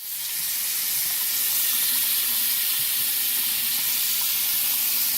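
Water running steadily from a faucet: an even, unbroken hiss.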